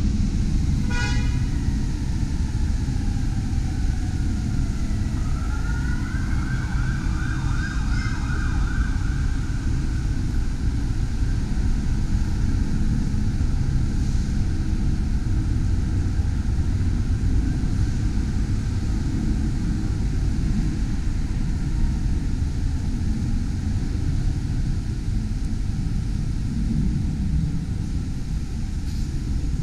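Emergency-vehicle siren: a wail rising in pitch about five seconds in, turning into a fast warble, and fading out after about nine seconds. A steady low rumble runs beneath it.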